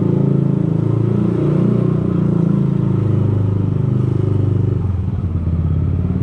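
Yamaha Aerox 155 scooter's single-cylinder engine running at low speed under the rider. About five seconds in, the engine note shifts and its level dips briefly.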